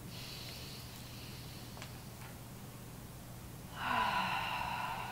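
A woman's audible breath through the mouth, a loud airy rush of air starting about four seconds in and lasting over a second, over a faint steady low hum.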